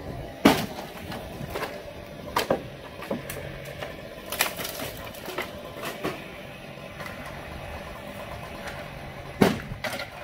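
A garage being torn down: irregular cracks and crashes of the structure breaking apart, the loudest about half a second in and another near the end, over an engine running steadily.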